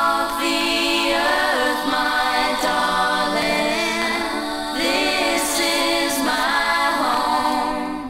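Opening of a 1980s pop-rock record: layered female voices sing a cappella in close harmony, with no bass or drums under them.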